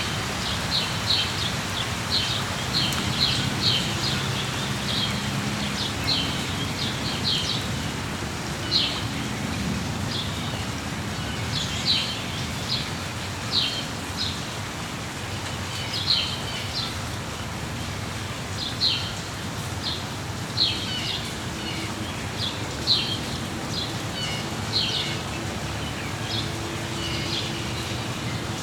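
Steady rain with songbirds chirping over it: short, high chirps repeated every second or two.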